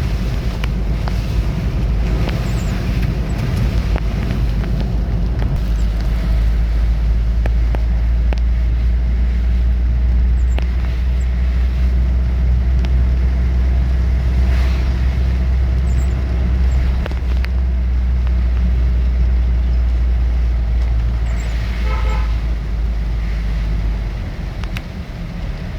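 Motor vehicle on the move with a steady deep rumble, and a short horn toot about 22 seconds in.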